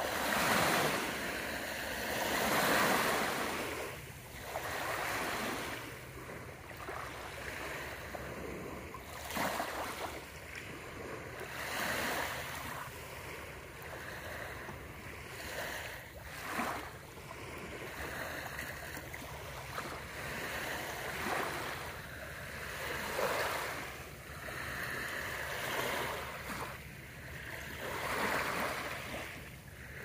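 Small waves lapping and washing onto a lake shore, swelling and fading every two to three seconds.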